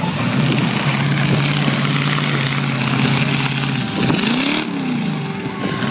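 Demolition derby car engines running, one held at a steady speed, then revving up and back down about four and a half seconds in.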